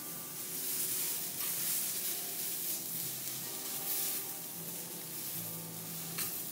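Seared vegetable pieces sizzling on a teppanyaki steel griddle, with light clicks and scrapes of a chef's knife and spatula on the hot plate, a sharp click near the end.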